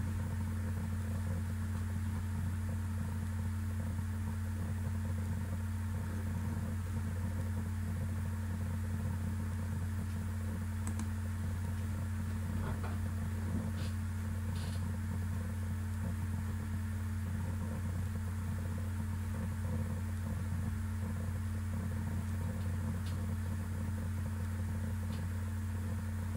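Steady low hum with no speech, broken a few times by faint short clicks.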